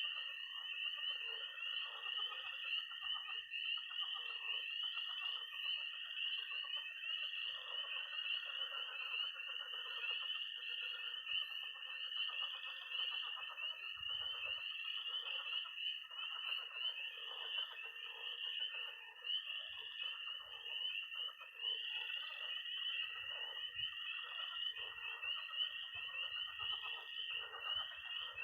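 Night chorus of frogs and toads: peeping tree frogs in a dense, pulsing chorus, one steady high-pitched toad trill held without a break, and lower croaking frogs from a pond underneath.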